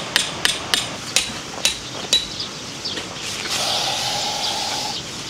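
A hammer driving a metal tent peg: about six sharp, ringing blows in the first two seconds, spacing out as they go. Near the end comes a steady hiss lasting about a second and a half.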